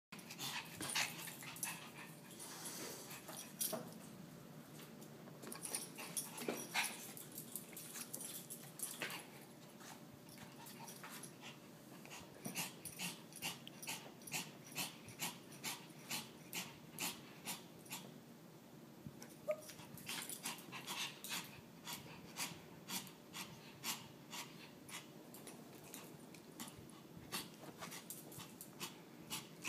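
Chihuahua begging, whining and wheezing in short bouts through the first part. Later comes a long run of sharp, regular clicks, about two a second.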